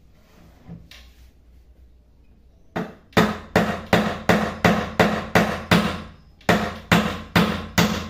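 A hammer driving nails into wooden boards laid on a wooden table: a steady run of sharp blows, about three a second, starting about three seconds in, with a brief pause near the end.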